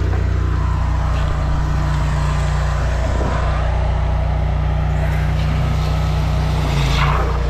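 High-pressure drain jetter running steadily with a constant engine hum while its hose jets water up a stormwater pipe to clear a tree-root blockage. Rushing, splashing water sounds along with it as dirty water is flushed back out of the kerb outlet.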